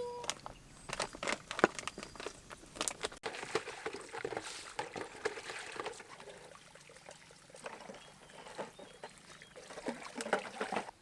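Water pouring and trickling, with a string of knocks and clinks of dishes being handled during washing up. The pouring is densest from about three to six seconds in.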